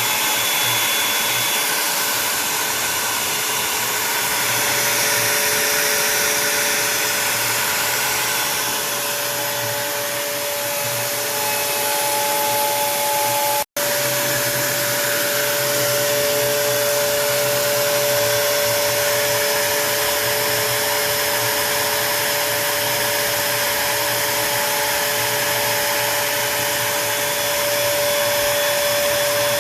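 Onefinity Woodworker CNC router cutting wood: the router spindle runs steadily with a constant whine over a loud hissing rush, broken by a momentary dropout about 14 seconds in.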